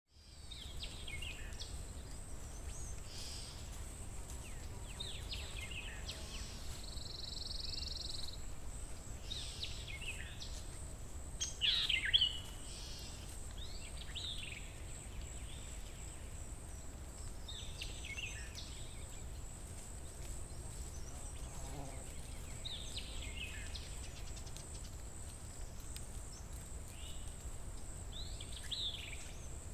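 Countryside birds calling on and off, short chirps every couple of seconds, with one louder call about twelve seconds in. Under them run a steady low rumble and a steady thin high tone.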